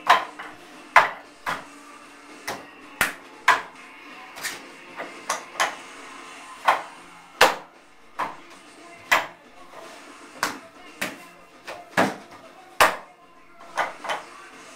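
Hands and forearms striking the wooden arms and trunk of a wing chun wooden dummy (mook jong): sharp wooden knocks at an uneven pace, about one to two a second, some in quick pairs and short runs.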